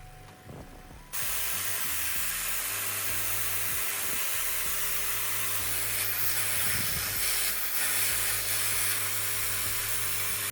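Sculpfun laser air assist compressor switched on about a second in, blowing a loud, steady hiss of air with a low hum underneath. The airflow is strong after the compressor has been cleaned of dust buildup.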